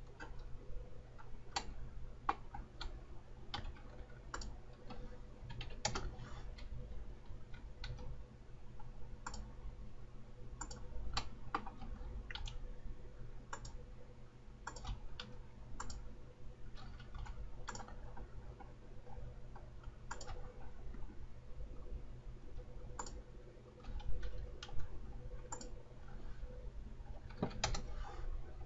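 Computer mouse and keyboard clicks, scattered and irregular, over a steady low hum.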